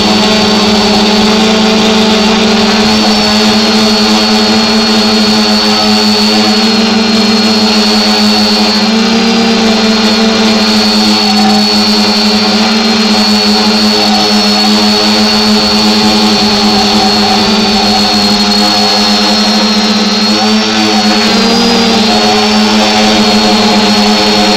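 Small drone's electric motors and propellers whining steadily, picked up loud and close by the drone's own camera, the pitch briefly rising twice as the throttle corrects.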